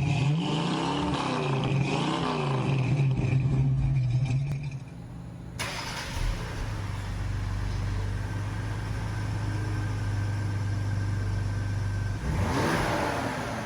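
Exhaust of a 2020+ Ford Explorer fitted with an MRT HighFlow H-pipe (resonator delete) and Extreme axle-back. It revs twice in the first few seconds, settles to a steady idle, and revs once more near the end.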